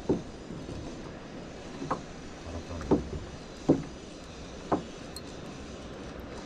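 Water slapping against the hull of a small drifting boat: five short, sharp slaps at irregular intervals about a second apart, over a steady low wash of sea and wind.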